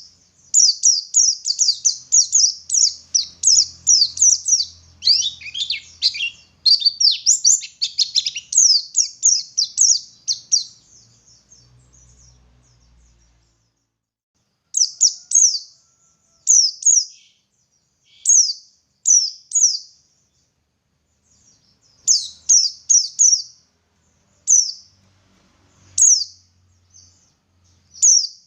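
Pleci (white-eye) singing: a fast, unbroken run of high, thin chirping notes for about ten seconds. After a pause of a few seconds, shorter groups of two or three quick notes follow.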